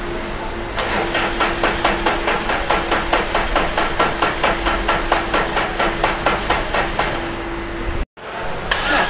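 Starter motor cranking a common-rail diesel engine, with a fast, even beat of compression pulses that keeps going for several seconds. It is the long-cranking fault, where the engine only starts after a very long crank. The sound breaks off briefly about eight seconds in, then the cranking beat starts again.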